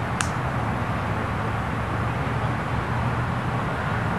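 Steady outdoor background noise, a low hum under a hiss, with one short sharp tap just after the start.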